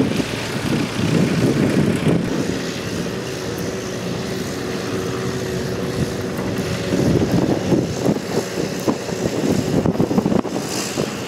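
Vintage farm tractor engines running, a steady low engine hum that is clearest in the middle, over an uneven low rumble.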